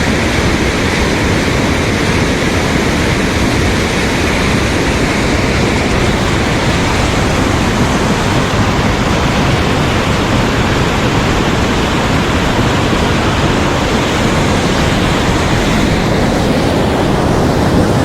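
Loud, steady rush of a mountain headwater stream tumbling over rocks close by.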